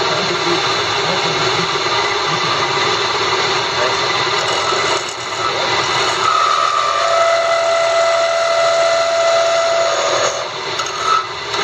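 Small wood lathe running while a hand-held tool cuts a thin spindle, a steady mechanical noise with the rasp of the cut. From about six seconds in a steady high whine rises over it and stops shortly before the end.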